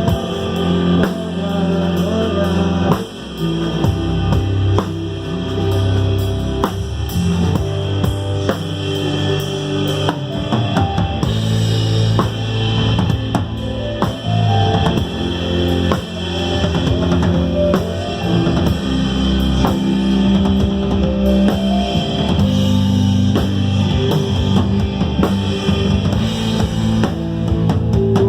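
Live worship rock band playing an instrumental passage: drum kit with bass drum driving the beat under electric guitars, bass and keyboard.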